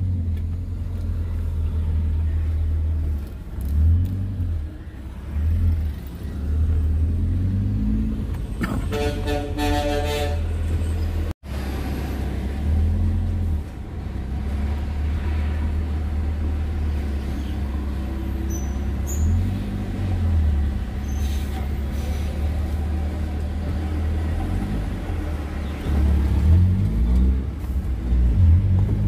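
Steady low rumble of a car's engine and tyres, heard from inside the cabin as it moves slowly. A vehicle horn sounds for about two seconds around nine seconds in, and the sound cuts out for an instant just after.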